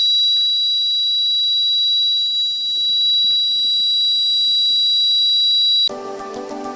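Homemade fire alarm's buzzer sounding one steady, high-pitched continuous tone that cuts off suddenly about six seconds in, when background music comes back.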